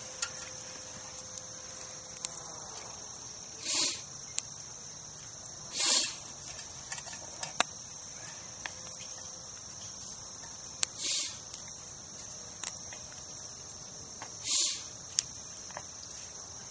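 Crickets trilling steadily at a high pitch. Four short, louder bursts of noise and a few sharp clicks come through over it.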